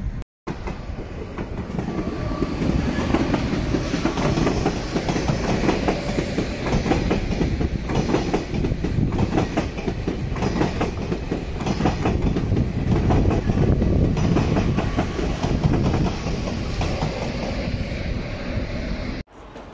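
A TGV passenger train passing on the tracks: a continuous rumble of wheels on rail with rapid clickety-clack over the rail joints, loudest about two-thirds through. It cuts off abruptly near the end.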